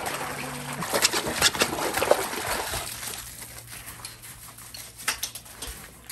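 A German Shorthaired Pointer splashing in a small plastic wading pool, water slapping and spraying hard for about three seconds. The sound then drops to a quieter stretch with a few light clicks.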